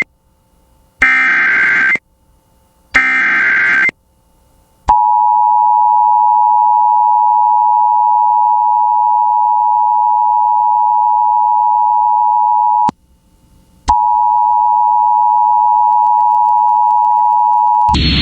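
Emergency Alert System tones on a radio broadcast. First come two bursts of SAME header data, each about a second long and a second apart. Then the steady two-tone attention signal runs for about eight seconds, breaks off for a second, and sounds again for about four seconds, announcing a severe thunderstorm warning.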